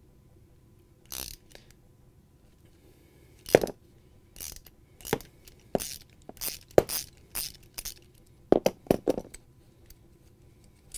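A wrench turns a bolt into the unthreaded hole of a refrigerator roller assembly's metal bracket, cutting its own threads: a series of irregular metal clicks and scrapes.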